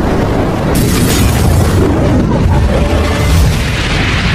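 Explosion sound effect of an animated fireball logo intro: a loud boom with a deep, continuous rumble, and a rush of hiss coming in about a second in.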